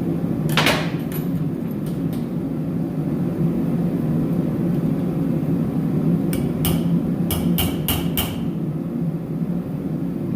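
Metal tools clinking and knocking against metal, with a quick run of sharp, ringing clinks about six to eight seconds in, over a steady low hum.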